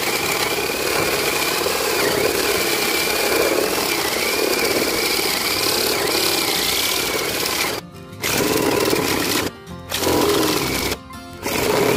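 Dekton D21 cordless drill running under load, cutting with a 55 mm hole saw: a steady motor and cutting noise with a wavering high whine. About eight seconds in it stops, then is triggered in three short bursts.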